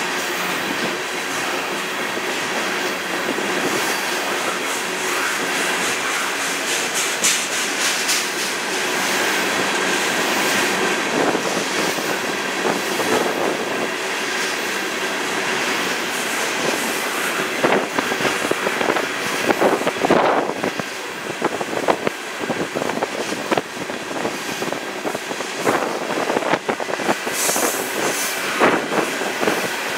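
Union Pacific freight train of three-bay covered hopper cars rolling past close by: a steady rumble of steel wheels on rail, with irregular clanks and clicks over the rail joints growing more frequent in the second half.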